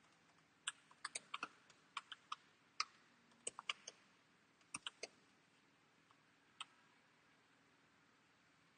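Faint computer keyboard typing: a run of irregular keystrokes over the first five seconds, then one more single click a little later.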